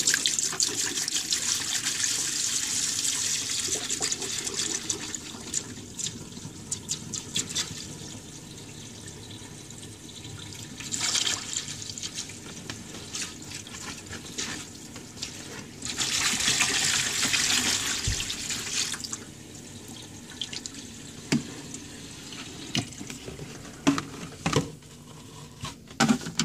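Plumbing antifreeze poured from a plastic jug into a stainless steel sink and running down the drain, splashing loudly at first, then in a thinner stream with heavier gushes about eleven seconds in and again for a few seconds around sixteen seconds in. A few knocks near the end.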